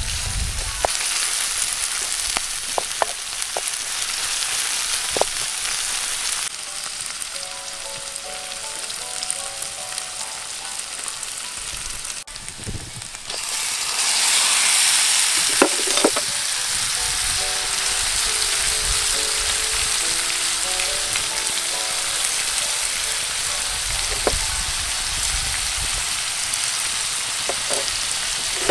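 Diced vegetables frying in a metal frying pan: a steady sizzle with a few sharp taps and scrapes of the stirring spoon. The sizzle gets louder about halfway through, as a liquid is poured into the pan.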